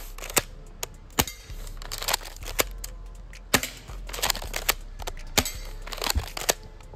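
Double Eagle M56B spring airsoft shotgun being pumped and fired in single shots: a string of sharp clacks and pops, about a dozen, the loudest about three and a half seconds in.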